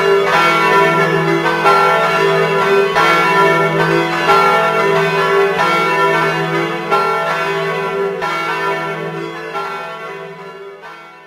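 Tower church bells ringing together, repeated strikes over a deep lingering hum, the ringing dying away over the last few seconds.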